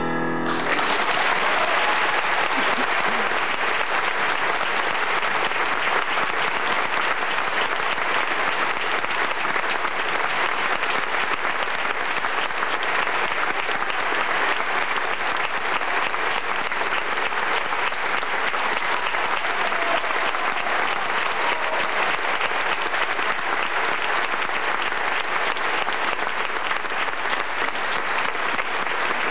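Audience applauding: dense, steady clapping that starts as the music stops.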